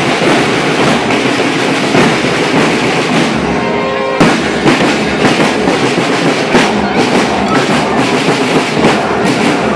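Scout marching band of snare drums, bass drums and cymbals playing loudly in a steady, driving beat. The drumming breaks off briefly a few seconds in and comes back with a hard hit.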